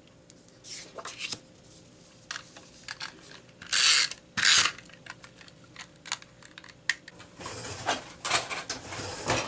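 Paper and cardstock being handled and slid about on a craft layout: scattered light taps and clicks, with two short, loud rustles of paper about four seconds in and more rustling near the end.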